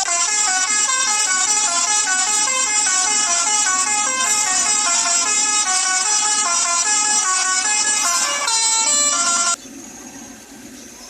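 Basuri 'telolet' multi-tone bus horn playing a quick, jingly melody of stepping notes. It cuts off suddenly near the end, leaving a much quieter background noise.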